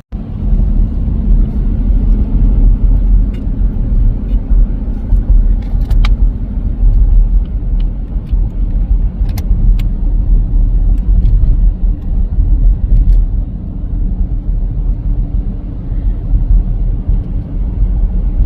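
Low, steady rumble of a car driving on the road, starting abruptly.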